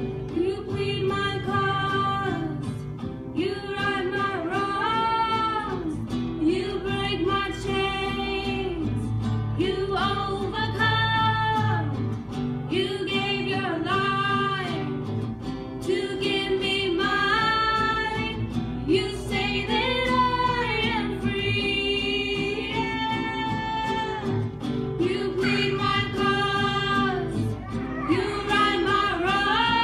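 Female voices singing a slow song in repeated phrases, accompanied by a strummed acoustic guitar.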